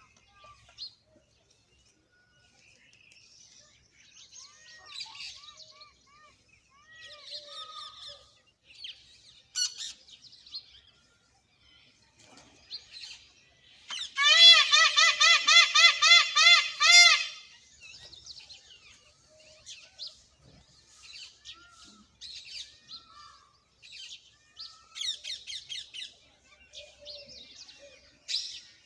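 Birds calling and chirping, with short scattered calls throughout. About halfway through, a loud, fast series of about a dozen repeated calls lasts roughly three seconds.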